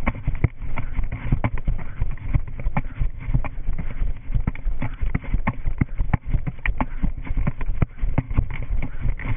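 Running footsteps on a concrete path, an even stride of about three steps a second, over a heavy low rumble of movement and wind on the body-worn camera's microphone.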